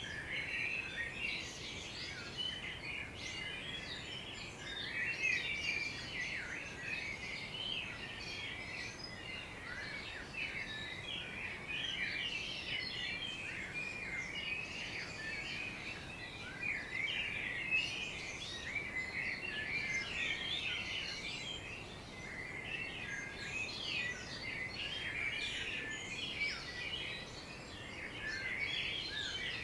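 Garden birds of several kinds chirping and singing together in a dense morning chorus, many short overlapping chirps and trills without a break, over a faint steady background hiss.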